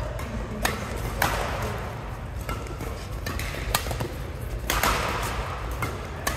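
Doubles badminton rally: the shuttlecock is struck by rackets in a string of sharp smacks at irregular intervals, each with a short ring-out in the hall. Brief shoe squeaks on the court floor come in between.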